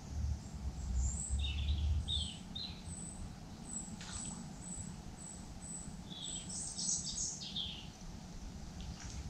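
Small birds calling: a thin, high note repeated about twice a second, with short chirps in between and a busier flurry of chirps about seven seconds in. A low rumble runs under the first two seconds.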